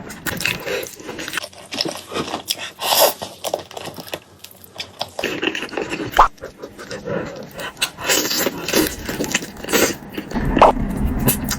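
Close-miked eating sounds: chewing, smacking and slurping on food, with irregular crackles and two short squeaky sucks.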